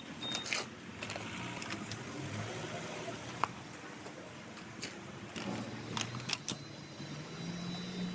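Low, steady engine hum with scattered sharp clicks and scrapes of tools on concrete blocks and gravel.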